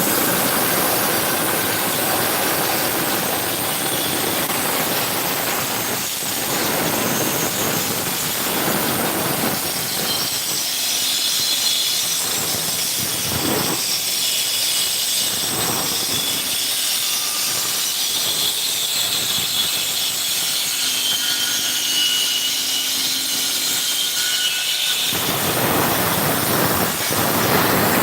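Concrete saw blade cutting through a concrete slab: a steady, high-pitched grinding hiss. Its lower rumble thins out for much of the middle and comes back near the end.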